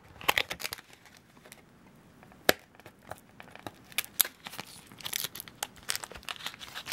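Clear plastic packaging crinkling and crackling in the hands as tape is peeled off it, with scattered sharp clicks.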